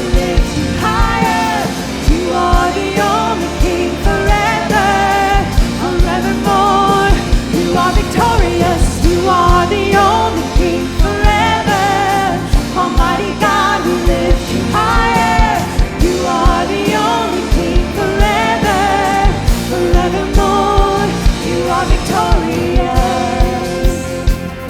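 A worship band playing a contemporary worship song, with a lead vocal over a steady kick-drum beat.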